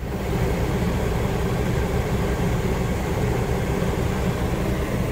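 New Coleman Mach rooftop air conditioner starting up and running: a steady rush of air with a hum and a steady tone, rising over the first half second and then holding level, as it begins blowing cold.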